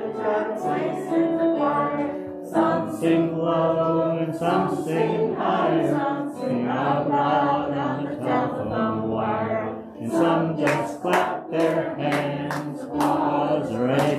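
Music: several voices singing a song together.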